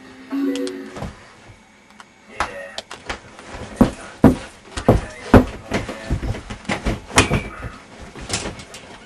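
A run of sharp thumps and knocks, a couple a second, with rustling, as a person thrashes and is thrown about on a couch. The thumps are loudest a few seconds in.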